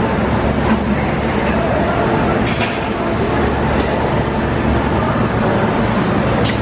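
Haas wafer production line running: a steady, loud machinery drone with a low hum from the conveyors and drives, broken by a few sharp clicks.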